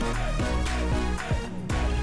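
Background music with a strong bass and a steady beat.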